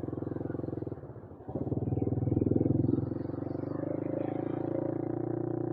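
Small quad bike (ATV) engine running as it drives across beach sand. It drops off briefly about a second in, then picks up again louder and settles into a steady note.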